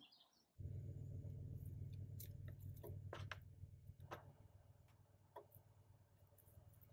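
Near silence: a low steady hum of room noise that eases off about four seconds in, with scattered faint clicks and taps as a kitten plays with a toy on a carpet.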